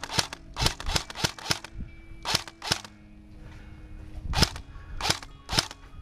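Airsoft rifle firing about ten single shots, each a sharp short snap, in uneven groups with a pause in the middle.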